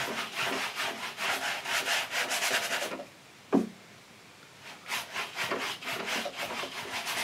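Paintbrush scrubbing oil paint onto a stretched canvas in rapid back-and-forth strokes, several a second. The brushing stops about three seconds in, with a single sharp knock in the pause, and starts again about five seconds in.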